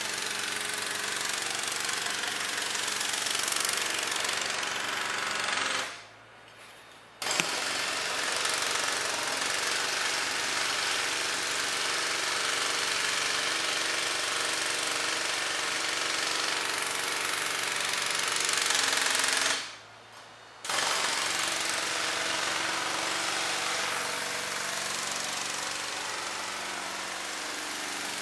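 Jackhammer hammering at road work in long, continuous runs, stopping briefly twice and starting again.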